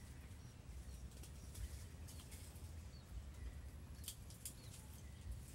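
Faint outdoor ambience: a low wind rumble with scattered short, high bird chirps, a cluster of them about four seconds in.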